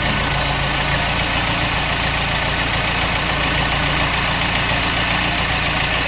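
Toyota 2E four-cylinder engine with an Aisan carburetor idling steadily at normal idle speed, its fast idle having come down while the auto choke gradually opens with the engine warm.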